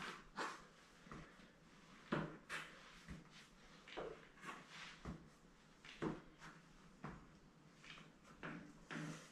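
Trainers stepping and tapping on rubber gym floor tiles: a string of soft, irregular thuds and scuffs, about one to two a second, as a foot is placed out in different directions and brought back.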